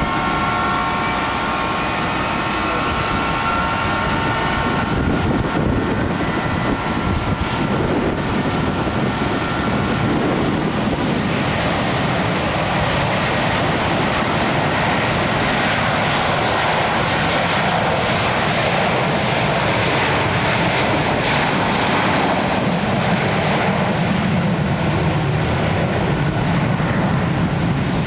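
Jet airliner engines: a whine of several steady tones at first, fading out about a third of the way in. After that comes a broad, steady rushing noise, with a low rumble building near the end.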